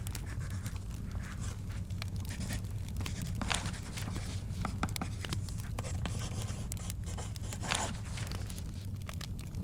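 Library study ambience: a steady low rumble with scattered small clicks and crackles of a wood fire, and brief paper rustles of pages turning, the loudest a little after three seconds and near eight seconds.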